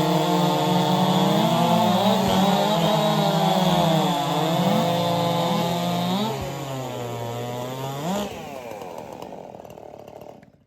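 Several 4-cubic-inch class racing chainsaws running flat out through a cut, their pitches dipping and rising as they load in the wood. About eight seconds in, one revs sharply upward and the saws fall away, fading out near the end.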